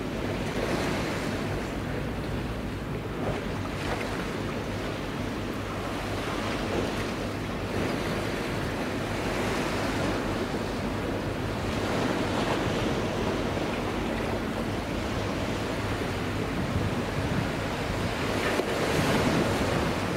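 Steady wind on the microphone mixed with sea water washing against the harbour pier.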